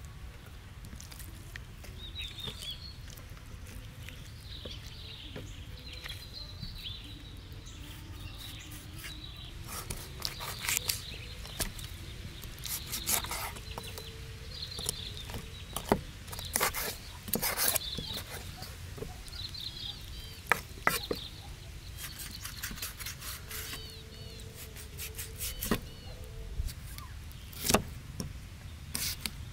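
Cleaver chopping and scraping through raw chicken onto a wooden chopping board: sharp, irregular knocks, starting about a third of the way in. Birds chirp in the background.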